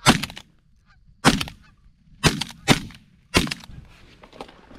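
Five shotgun shots from two hunters' shotguns within about three and a half seconds, each a sharp blast with a short echoing tail. Faint Canada goose honking sounds between the shots.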